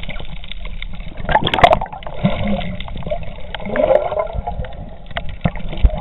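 Water heard from below the surface: a muffled rush with gurgling bubbles and a few sharp knocks, the loudest about one and a half seconds in.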